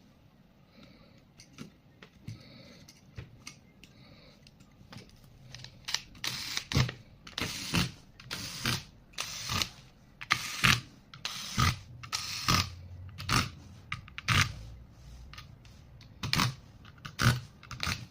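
Sharp clicks and light knocks from laptop parts being handled and fitted, coming roughly once a second from about six seconds in.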